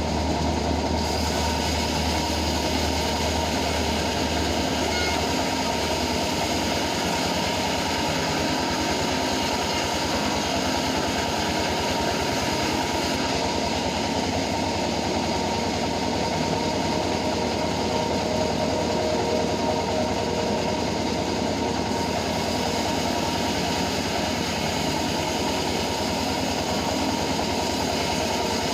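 Homemade band sawmill running steadily, a continuous loud machine noise with a low drone that shifts about six seconds in.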